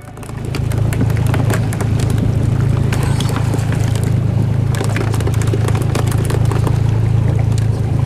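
Boat engine running with a steady low hum, with water splashing and rushing along the hull.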